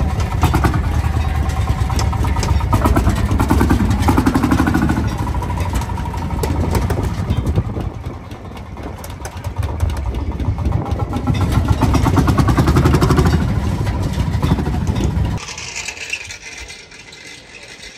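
Landini tractor's single-cylinder two-stroke hot-bulb engine running with a heavy, pulsing beat, growing louder and fainter as it works. It drops away abruptly about fifteen seconds in.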